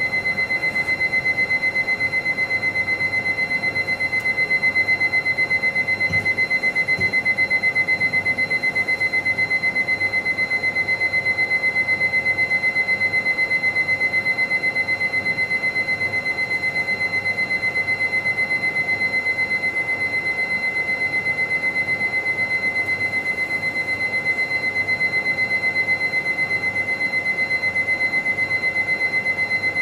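Electronic soundscape of the installation: a steady, high, alarm-like tone pulsing rapidly and evenly, with a fainter tone above it and a low hum beneath, unchanging throughout.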